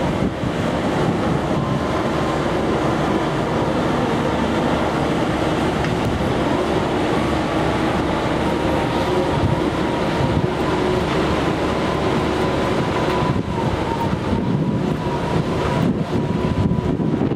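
Construction machinery on a building site, a piling rig and an excavator, running steadily, with a faint steady whine above the engine noise.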